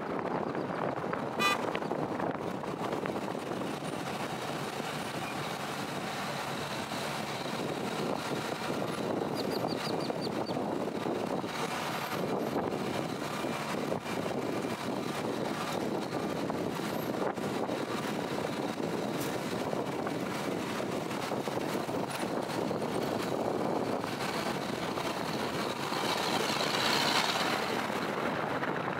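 Steady road and wind noise of a moving vehicle, with a sharp click about a second and a half in and a louder swell near the end.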